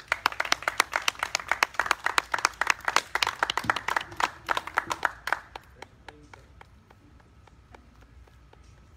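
Audience applauding: dense clapping for about five seconds, then thinning to a few scattered claps that die out about seven and a half seconds in.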